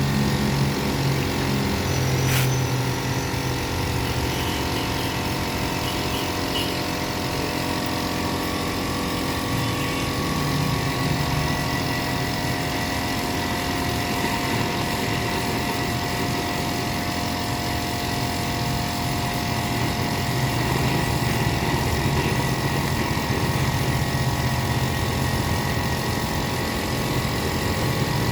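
A motor running steadily with an even hum, with a single short click about two seconds in.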